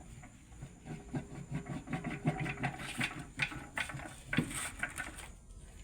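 Irregular metallic clicks, clinks and knocks of hand tools working on a truck transmission, over a low steady hum.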